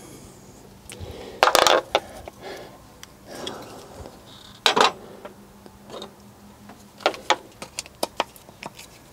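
Metal hand tools clinking and knocking in a car's engine bay as a hammer and screwdriver are handled around a seized fuel-distributor screw: one loud clatter about a second and a half in, a sharper knock near five seconds, then a run of light clicks near the end.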